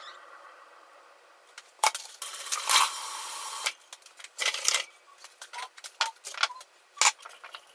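Kitchen handling noises: a click, then about a second and a half of rustling or scraping, then a run of light clicks and knocks as a wooden bowl is set down on the stone countertop.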